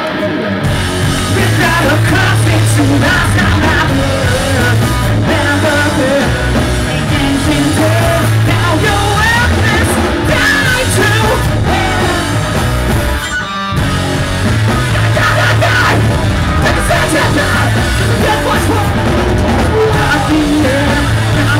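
Live post-hardcore band playing loudly: distorted guitars, drums and bass, with sung and yelled vocals, and a brief break about thirteen seconds in before the full band comes back in.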